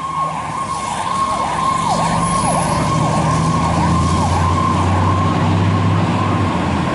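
Fire rescue truck's electronic siren sounding, its tone dipping sharply and recovering about twice a second. A deep steady drone runs underneath, growing louder about two seconds in and stopping near the end.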